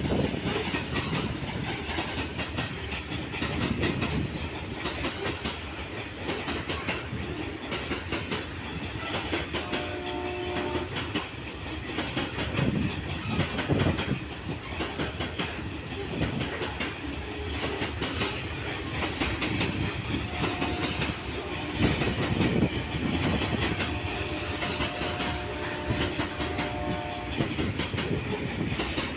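Freight train of covered NTPC hopper wagons rolling past, the wheels clicking over the rail joints in a steady clickety-clack over a continuous rumble. Brief steady tones sound twice, about a third of the way in and again near the end.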